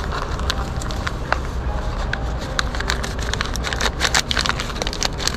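Paper packet of gelatin dessert powder crinkling in the hands as it is opened, in quick irregular crackles, over a low steady rumble.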